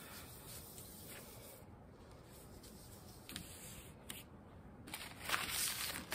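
Felt pad rubbing Brasso over a copper plate to polish it: faint scratchy rubbing with a couple of small taps, turning into loud, steady scrubbing about five seconds in.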